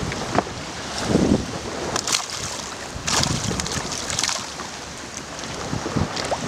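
Sea water splashing and washing, with gusts of wind buffeting the microphone.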